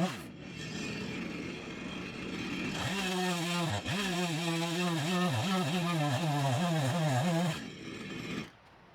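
Two-stroke chainsaw revving at high throttle, dropping back just after the start, then running high again from about three seconds in with its pitch dipping repeatedly, before it stops about seven and a half seconds in.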